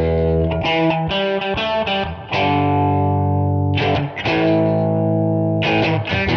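Outro music: distorted electric guitar playing sustained power chords, changing chord every second or two.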